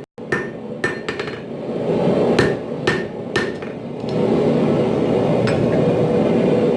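Hand hammer striking steel on an anvil, forging a knife blade: a run of irregular blows, each with a short metallic ring, then only one more blow near the end. A steady rushing noise runs underneath.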